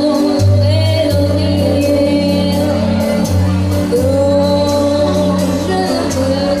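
A song: a solo voice sings long held notes over a backing track with a steady bass and drum beat.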